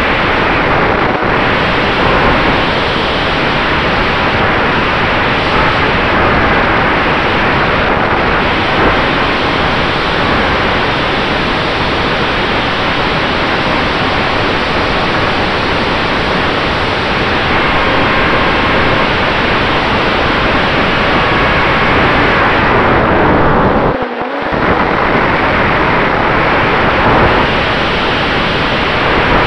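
Loud rushing airflow over the onboard camera's microphone on an RC P-47 in flight, with a faint steady whine from its electric motor and propeller. The rush drops away briefly about 24 seconds in.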